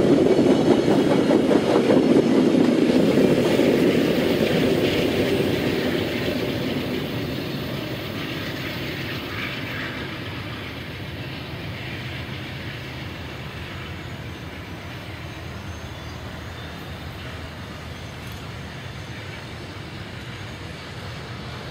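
VIA Rail passenger train's cars and wheels running past on the rails, loud for the first several seconds, then fading steadily as the train moves away.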